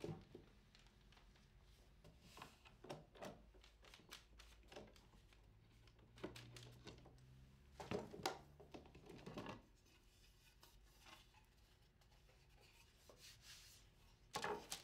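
Faint clicks and knocks of parallel bar clamps being handled and set down on a workbench, with a few short rattles of the clamp jaws and wood panels, scattered through otherwise near silence.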